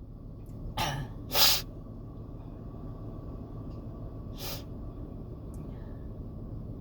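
A person sniffing hard through the nose during a sneezing fit: two quick sniffs about a second in, then a fainter one a few seconds later, over a steady low room hum.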